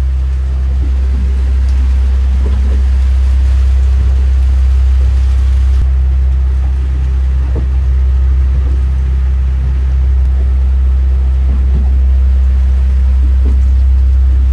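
Heavy rain of a thunderstorm pelting a small boat, over a loud, steady low rumble. The rain's hiss softens about six seconds in.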